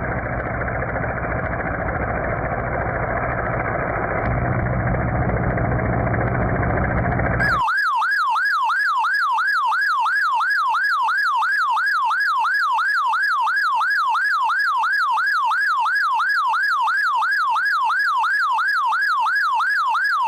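Dense engine-like rumble with a steady low hum for about the first seven seconds. Then it cuts off and an electronic yelp siren takes over, sweeping rapidly up and down in pitch about twice a second, clean and steady.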